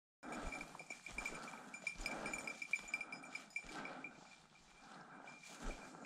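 Small bell on an English setter's collar tinkling in irregular little jingles as the dog moves about, over uneven rustling.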